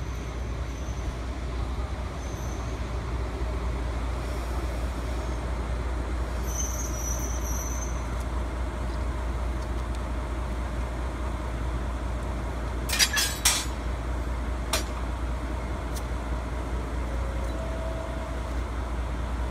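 DE10 diesel-hydraulic locomotive running with a steady low engine rumble as it creeps along. There is a short high squeal about a third of the way through, and a brief cluster of sharp knocks about two-thirds through.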